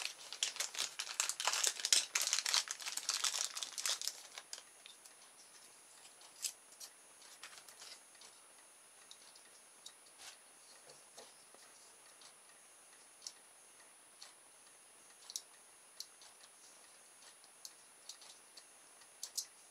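Clear plastic packaging crinkling for about four seconds as a small spool of coated copper wire is unwrapped, then faint, scattered clicks and taps as the spool is handled in the fingers.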